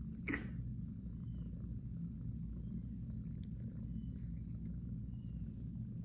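Domestic cat purring steadily with a low, fast rumble.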